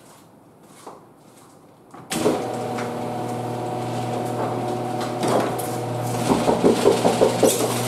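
Cub Cadet RZT zero-turn mower's engine starting suddenly about two seconds in, then running steadily; it is being started up to purge air from the freshly rebuilt hydrostatic transmissions. Near the end it turns louder and uneven, with a fast pulsing rattle.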